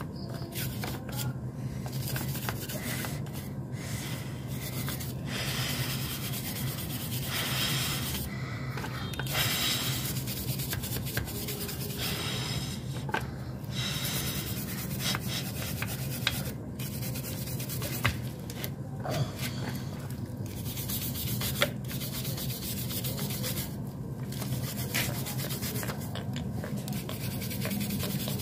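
Stiff brush scrubbing the oily casing of a Suzuki RC100 motorcycle engine during a gasoline wash, in uneven runs of strokes with short pauses, over a steady low hum.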